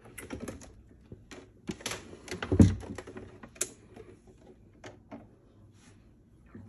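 A portable sewing machine being lifted and set down on a table: scattered clicks and rattles of handling, with one heavy thump about two and a half seconds in as it lands.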